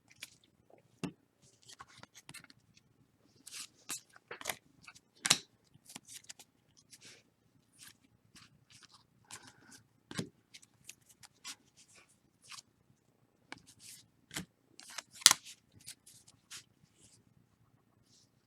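Football trading cards being handled and flipped through, an irregular run of soft clicks, flicks and swishes of card stock sliding against card, with a sharper snap about fifteen seconds in.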